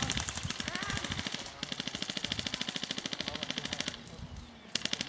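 Airsoft guns firing on full auto: rapid, even strings of shots, one running about a second and a half, a longer one of over two seconds, and a short burst near the end.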